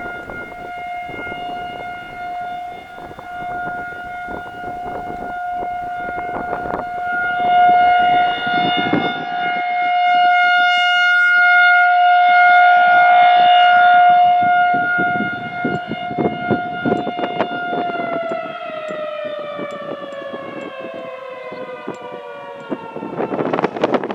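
Federal Signal 2001-130 rotating electromechanical siren sounding a single steady tone during a scheduled test, swelling louder and fading as the horn turns toward and away. About three quarters through, power cuts and it begins to wind down, its pitch sliding lower.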